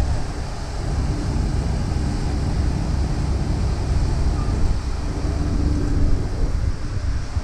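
Wind buffeting the camera microphone: a loud, gusting low rumble, with a faint steady hum coming and going underneath.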